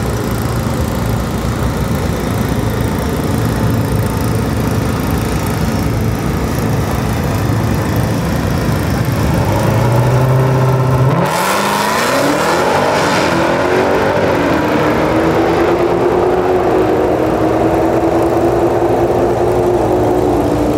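Dodge Challenger's V8 rumbling steadily at the drag-strip starting line, then launching hard about eleven seconds in, its note climbing sharply and holding high as the car accelerates away down the track.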